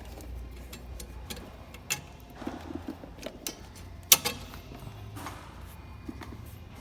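Scattered clicks and light taps of hand tools and plastic and metal engine parts being handled during reassembly, with one sharp, louder click about four seconds in, over a faint steady low hum.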